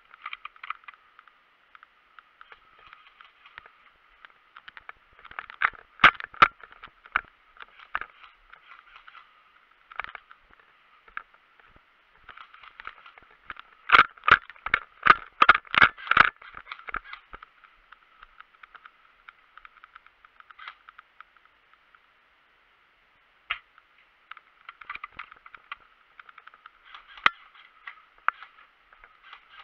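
Airsoft gunfire during a game: scattered sharp cracks, with a quick run of about ten shots a little before halfway and a few more near the end, over a steady muffled hiss.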